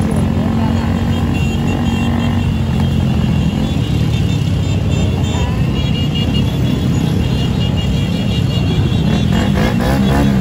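Many motorcycle engines running together in a slow-moving pack in traffic, a steady dense hum, with music playing over it.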